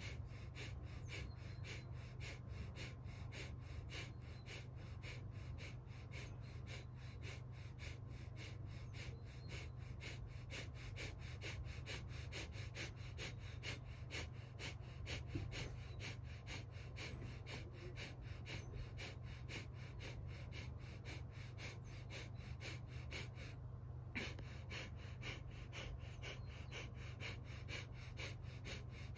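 Breath of fire: a person's rapid, forceful exhalations, pumped from the belly at about three a second, with one brief break late on.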